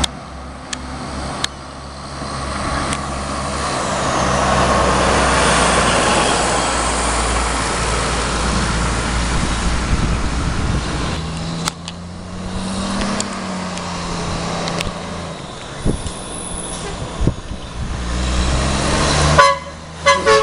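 Road traffic and truck engines going by on a street, louder as a vehicle passes close about five seconds in. Near the end, a couple of short horn toots.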